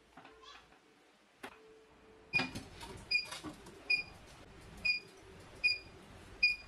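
A lid being pressed onto a glass food container, then a knock as it is set down. After that the refrigerator-freezer gives short high electronic beeps, about one a second, each with a faint click, as its door stands open.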